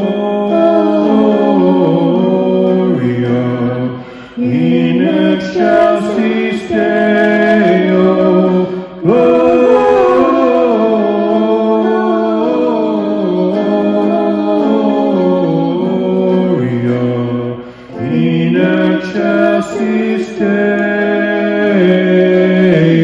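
A man and a woman singing a duet, with electric guitar accompaniment, the voices moving through long, stepwise-descending runs of notes with brief breaths between phrases.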